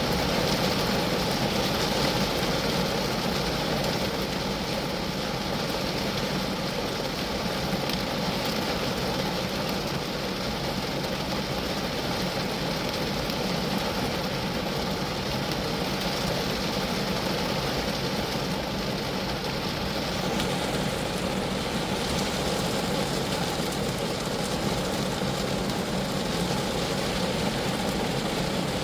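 Steady rain falling on a Geo Metro's roof and body, a dense, even rush of drops with no letup.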